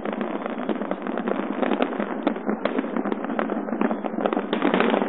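Aerial fireworks shells bursting in a dense, continuous barrage of overlapping bangs and crackle, many a second, recorded on a phone with no deep bass.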